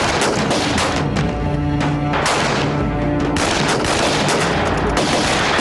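Dense gunfire from many guns, shots coming fast and overlapping, with dramatic music underneath.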